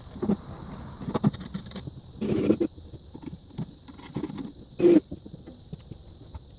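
Irregular clicks, taps and knocks of hand tools and metal hardware being worked on a wooden hive box, with a brief noisy burst about two seconds in and a sharper, louder one about five seconds in.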